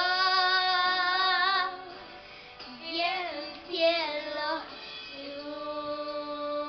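A young girl singing a Spanish love ballad over a backing track. She holds one long note with vibrato, then sings a shorter phrase. About five seconds in her voice stops and the backing music carries on with sustained chords.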